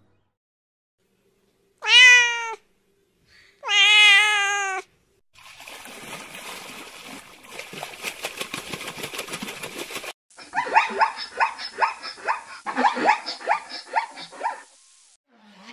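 A sheep bleats twice, about two seconds apart. Then come a few seconds of trickling, bubbling water with fine crackle. Then a zebra barks in two bouts of rapid, repeated yelping calls.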